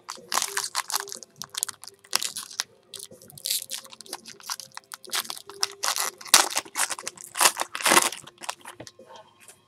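Foil wrapper of a 2013 Bowman Jumbo baseball card pack crinkling and tearing as it is ripped open by hand: a dense, irregular run of sharp crackles, loudest about six and a half and eight seconds in.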